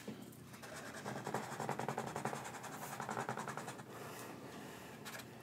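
Felt-tip markers drawing lines on paper: a faint, fine scratchy squeak that fades out near the end.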